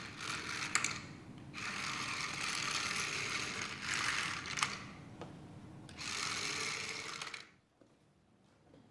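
Small remote-controlled toy robot's motor whirring in three bursts, stopping about seven and a half seconds in.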